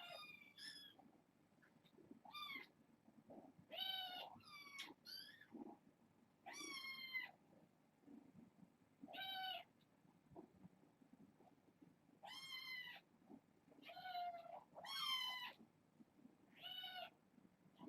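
Young kittens meowing: about a dozen short, high-pitched mews at irregular intervals, several falling in pitch.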